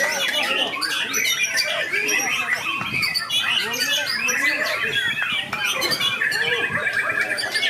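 Several white-rumped shamas (murai batu) singing at once, a dense overlapping chorus of whistles, trills and squawks. Near the end one bird holds a fast, even trill.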